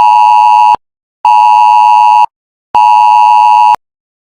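A mobile phone's emergency alert tone sounds loudly as long steady beeps, each about a second long with half-second gaps. The tone is cut off under a second in, sounds twice more in full, and the last beep stops near the end. It is the attention signal of a cell broadcast emergency alert, here a sample test message.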